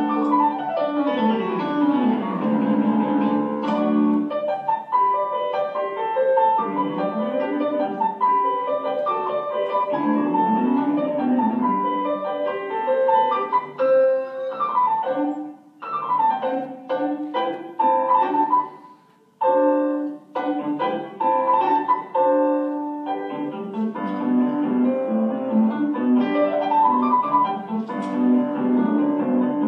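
Piano music played on a digital piano, with computer-generated accompaniment following the player. The music almost stops twice, briefly, a little past halfway.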